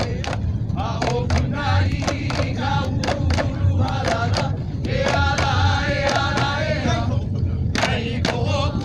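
Hawaiian chant: voices singing over a beat of sharp percussive strikes and deep drum thumps.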